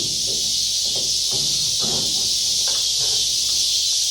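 A steady, loud, high-pitched hiss with faint scattered clicks and knocks beneath it as the freshly greased hood latch is worked.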